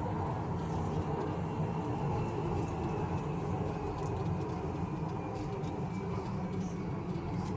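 Driverless metro train running between stations, heard from inside the car: a steady low rumble with a faint high whine.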